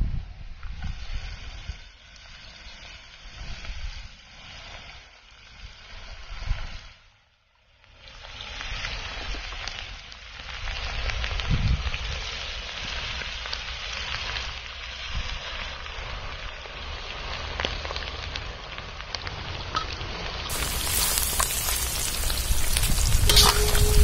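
Batter-coated chicken feet frying in hot oil in an iron kadai: a dense sizzle and bubbling that grows louder as more pieces are dropped in, after a brief drop-out about seven seconds in.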